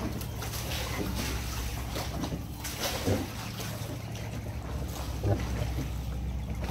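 Wooden wupeng boat being rowed across open water: a short knock or splash from the oar about every two seconds, over a steady low rumble of wind on the microphone.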